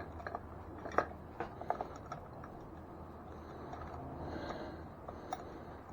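Scattered light clicks and knocks of the e-bike's front wheel and axle being worked into the fork, a few close together in the first two seconds and one more near the end.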